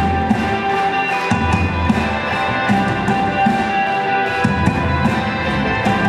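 Live rock band with a string section playing: electric guitar over violins, cello and drums, with a steady beat.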